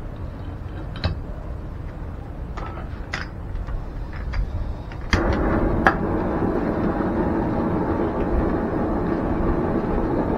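A few metallic clinks of tools and copper fittings being handled. About halfway in, a canister gas torch lights with a click and burns with a steady rushing hiss.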